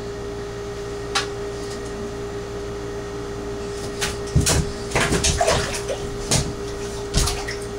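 Beagle puppy scrambling over the rim and into a bathtub: claws scrabbling and knocking on the tub, with several thumps as it climbs and lands, over a steady background hum. The knocks cluster from about four seconds in, with a couple more near the end.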